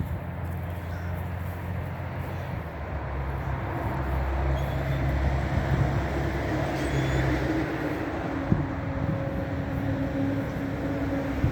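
A motor vehicle's engine running with a steady low hum that swells about halfway through, then shifts to a higher, steadier drone.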